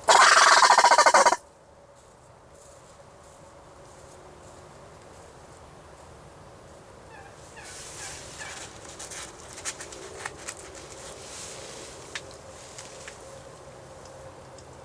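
A turkey gobble: one loud, rapid rattling call lasting about a second and a half at the start, followed by quieter background with faint bird chirps and a few small clicks.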